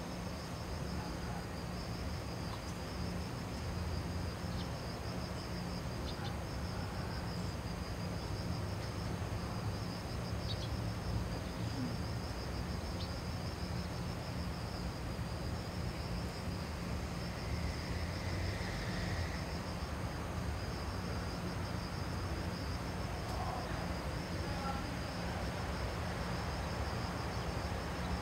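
Insects chirping in a steady, rapidly pulsing high trill over a constant low background rumble of outdoor ambience.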